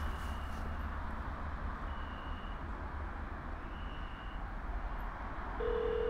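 Steady low hum with a short high beep repeating about every two seconds; near the end a steady telephone ringback tone starts, the line ringing on a call being placed.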